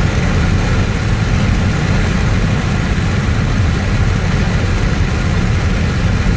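Steady low rumble of a vehicle on the move, engine and road noise, with a constant hiss above it.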